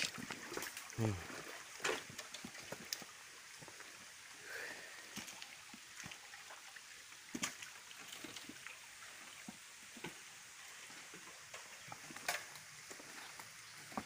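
Footsteps crunching over dry leaves, twigs and stones, irregular clicks and crackles, over a steady background hiss.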